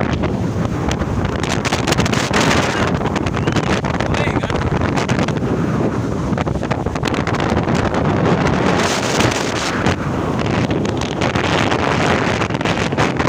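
Loud wind buffeting the microphone in gusts, over the wash of sea surf breaking on a sandy beach.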